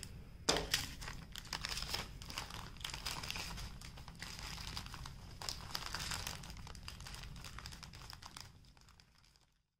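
Clear plastic bags of diamond-painting drills crinkling and crackling as they are handled. The crackling fades out near the end.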